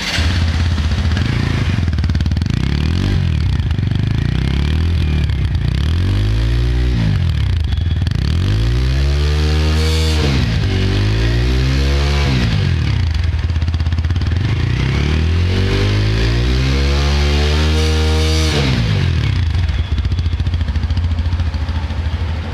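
TVS Apache RTR 160 4V BS6's single-cylinder four-stroke engine idling and revved about six times, each rev rising and falling in pitch; the longest comes near the end.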